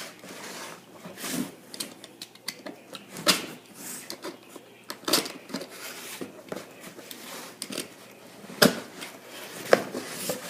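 A cardboard shipping box being opened and its packaging handled: irregular rustling and scraping with several sharp knocks, the loudest a third of the way in and twice near the end.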